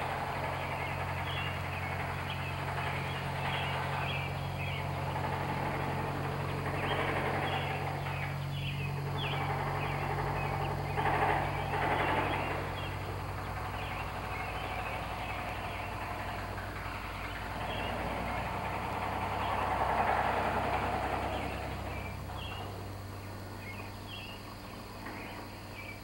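Concrete mixer trucks' diesel engines idling, a steady low hum that changes pitch about halfway through, with frequent short clanks and knocks over it, typical of dried concrete being hammered and chipped out of a mixer drum.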